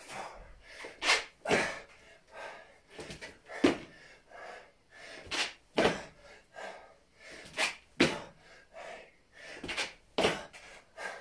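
A man breathing hard from exertion during bodyweight exercise: short, forceful breaths in quick succession, more than one a second.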